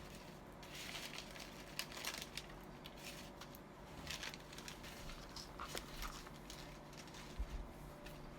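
Paper and craft pieces being handled on a table: light rustling in short, scattered bursts over a faint steady hum.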